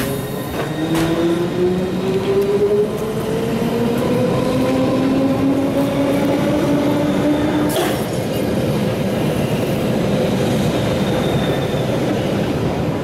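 London Underground D Stock train pulling out of a platform and accelerating past: its traction motor whine rises steadily in pitch for about eight seconds, then breaks off at a sharp click, leaving the steady running noise of the wheels on the rails.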